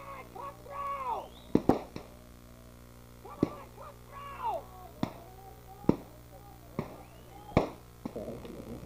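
A series of about nine sharp cracks or knocks spread over several seconds, with indistinct calling voices between them and a steady low electrical hum underneath.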